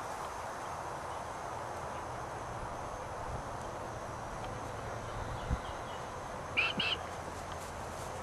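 Steady background hiss, with a soft thump and then two short, faint high yips from a German shepherd puppy near the end.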